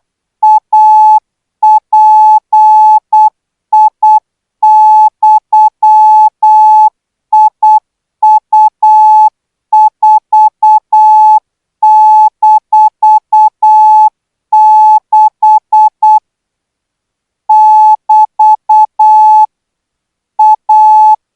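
Morse code sent as one steady beep tone, keyed into short and long elements grouped into characters with short pauses between them: a Thai Morse code practice signal at 12 words per minute.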